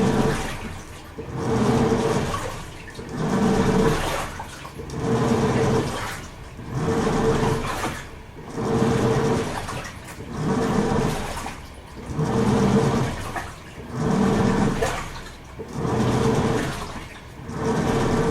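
Toshiba AW-42SEE4(S) fully automatic top-loading washing machine agitating a load: the pulsator motor hums and the water swishes in regular surges about every one to two seconds as the drive reverses back and forth.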